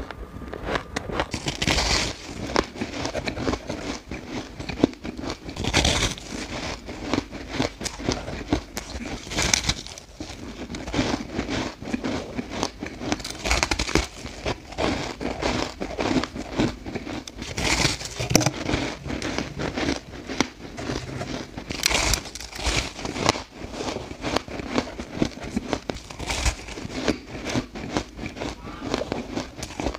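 Fluffy freezer-frost ice being bitten and chewed close to the microphone: a dense, crackling crunch, with a louder bite every few seconds.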